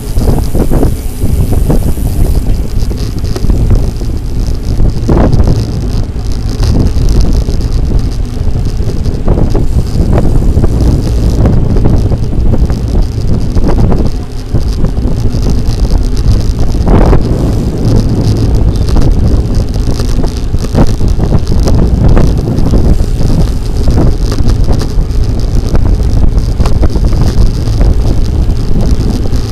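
Wind buffeting the microphone and road rumble from a bicycle riding along, loud and continuous, with a few sharp knocks.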